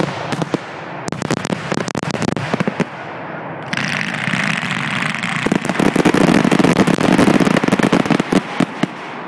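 Fireworks finale barrage: rapid crackling and popping bursts. About four seconds in, a continuous hissing crackle joins them and builds, loudest near the end.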